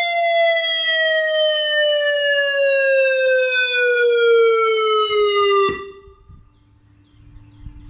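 Ion Pathfinder siren sound from a homemade simulated siren setup, one tone gliding steadily downward, then cut off abruptly near the end of the glide. Afterwards a faint, steady distant siren tone and a low rumble remain.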